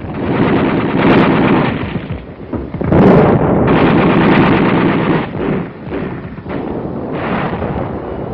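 Dense, rapid gunfire with machine-gun fire among it, loudest about a second in and again from about three to five seconds in.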